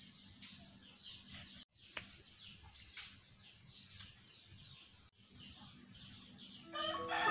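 Faint, rapid chirping of small birds, many short falling chirps in quick succession, with a couple of light clicks. Music comes in near the end.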